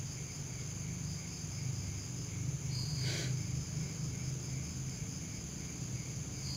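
Quiet background: a steady low hum under faint, steady, high-pitched insect chirring, with a short higher tone about three seconds in.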